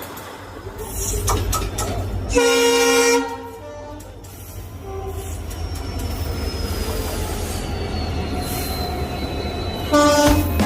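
Indian Railways locomotive horn blasting twice over the rumble of a passing train: one loud blast about two and a half seconds in lasting under a second, and another near the end.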